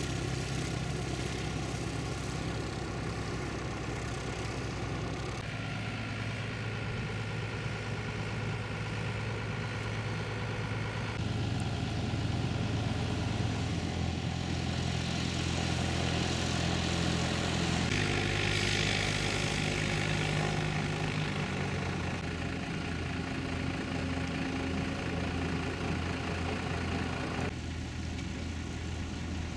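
Light aircraft piston engines and propellers running at low power as the planes land and taxi. The hum is steady, with abrupt changes in tone a few times where separate shots are joined.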